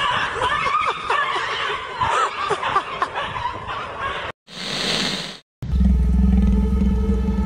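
Short animal cries sliding up and down in pitch as a bird and a cat scuffle. About four seconds in the sound cuts out, a short whoosh follows, and then a low, steady growl begins as a cat and a terrier face off.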